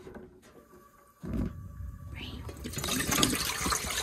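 Water poured from a glass bowl into a large metal cooking pot, splashing and filling from about two seconds in. A low thump comes a little over a second in.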